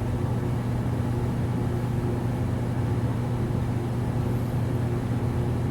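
Steady low mechanical hum with a constant pitch, running evenly with no breaks.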